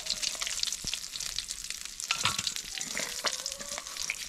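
Fish frying in hot oil, sizzling steadily with a dense crackle of small pops.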